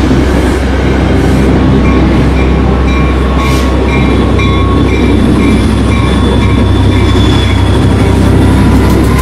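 Diesel train running past close by, with a steady heavy low rumble of engine and wheels. A bell rings repeatedly, about three strikes a second, from about two seconds in until near the end.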